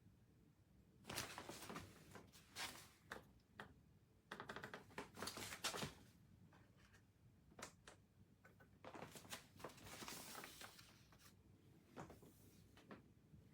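Faint handling noises: scattered light clicks and short bursts of clatter and rustle, in three clusters separated by near silence.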